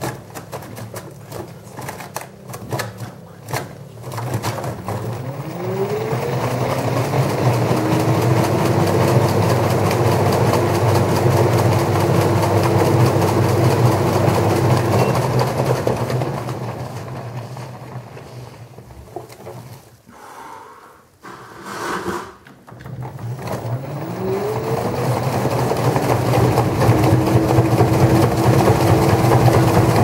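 LG direct-drive front-loading washing machine: a few knocks as the wet laundry tumbles, then the drum speeds up into a spin with a rising motor whine that levels off into a steady run. About two-thirds through, the spin slows to a lull with a few knocks, then the whine rises and steadies again as the drum spins back up.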